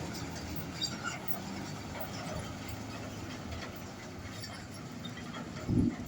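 Old truck's engine running with a steady low rumble, with scattered small clicks and one short, loud thump near the end.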